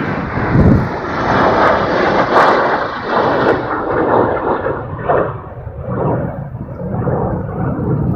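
Strong wind buffeting the microphone: a loud, uneven rush that swells and eases with the gusts.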